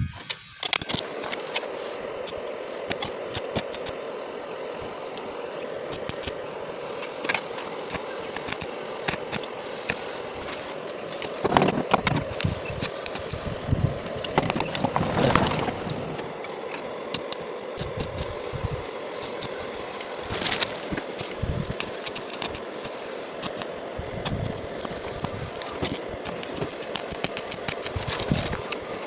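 Metalwork on a sheet-steel patch panel in a car's rusted body: a steady hum with many small, sharp clicks and crackles throughout. There are louder, rougher stretches about twelve, fifteen and twenty seconds in.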